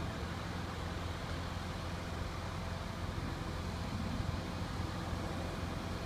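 Large engine running steadily with an even low rumble.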